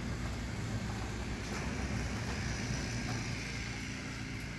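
Chamberlain RJ070 wall-mount (jackshaft) garage door opener running steadily, raising a sectional garage door.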